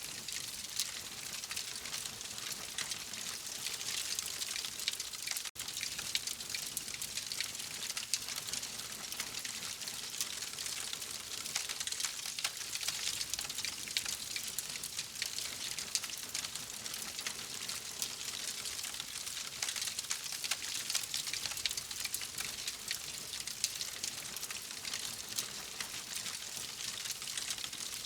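Wood fire crackling in a fireplace: a steady dense patter of small pops and snaps over a soft hiss, with a momentary dropout about five seconds in.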